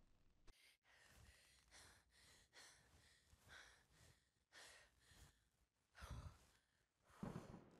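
A person's faint, heavy breathing: a run of short breaths and sighs, about one or two a second, with a stronger breath near the end.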